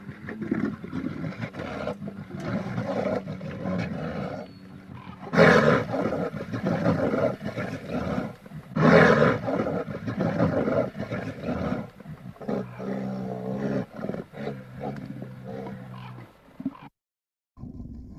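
Bear growling and roaring: a run of rough, throaty growls with two loud roars about five and nine seconds in, then a lower, steadier growl that breaks off just before the end.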